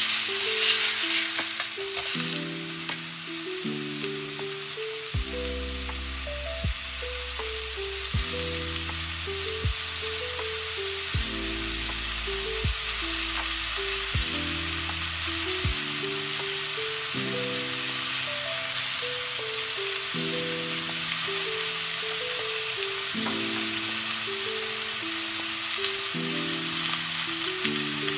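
A stir-fry sizzling steadily in a hot wok as it is stirred, with a few sharp clicks of the spatula in the first couple of seconds. Background music with a simple melody plays under it, and a bass line comes in for about ten seconds in the middle.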